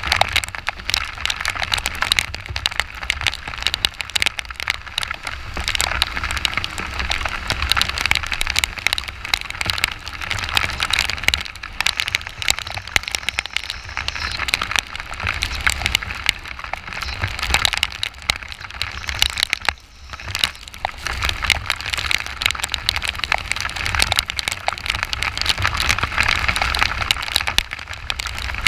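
Heavy rain hitting the camera as dense, constant crackling clicks while riding a motorcycle, over a steady hiss of wind and wet road spray and a low rumble underneath.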